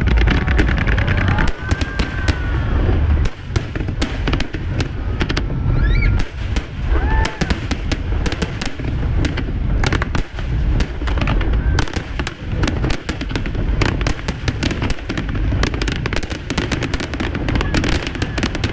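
Aerial fireworks display: a dense run of sharp crackling reports over deep, rolling booms, with a few short whistling glides.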